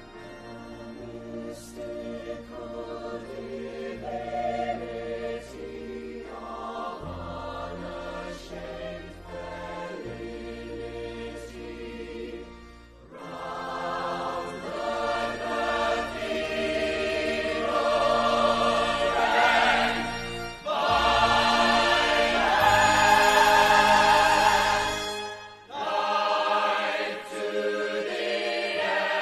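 A musical-theatre instrumental backing plays with sustained bass notes and a light high tick every couple of seconds. About halfway through, a large choir of mixed voices comes in singing in full voice, growing louder toward the end.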